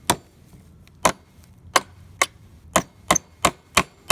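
Hammer driving a 16-penny nail into a wooden 2x4 with sharp metallic strikes, about nine or ten of them, coming quicker toward the end at about three a second.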